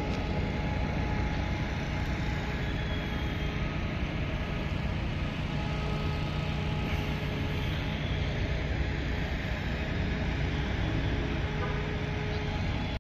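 Steady low rumble of idling vehicle engines, with a few faint steady hums above it and no sharp sounds.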